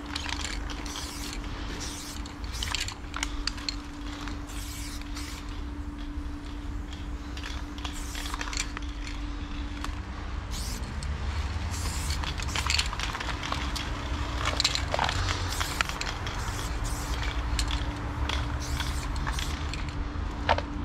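Aerosol spray paint can (Loop Colors) hissing in many short bursts as paint is sprayed onto a wall, over a steady low rumble and a faint steady hum.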